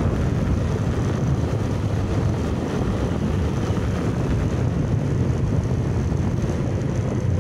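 Steady low rumble of wind buffeting the microphone as it moves along a road, with road noise beneath and no distinct engine note.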